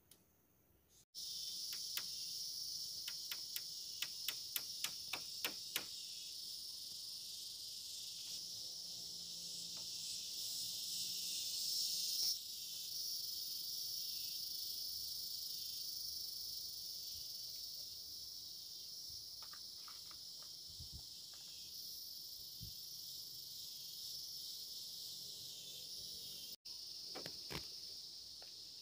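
A steady high-pitched chorus of insects, with a quick run of about ten sharp clicks between two and six seconds in.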